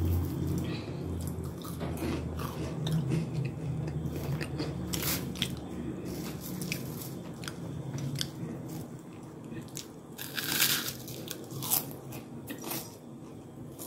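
Crisp toasted garlic bread, made on a dosa griddle, being broken and crumbled by hand: a scatter of faint crunching crackles, with a few louder crunches near the end.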